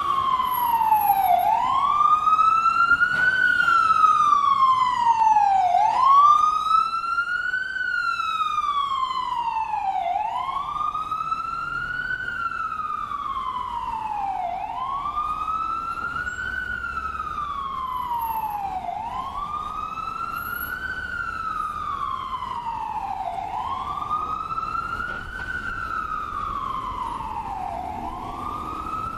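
Ambulance siren in a slow wail: its pitch climbs quickly and then sinks back more slowly, over and over about every four and a half seconds, growing gradually fainter.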